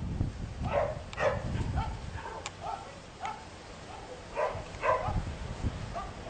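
An animal calling in short repeated yelps, about two a second, over a low rumble.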